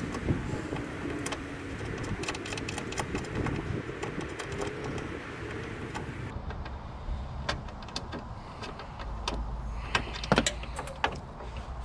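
Scattered metallic clicks, knocks and rattles of hand tools and a hood latch being worked on, over a faint low background rumble.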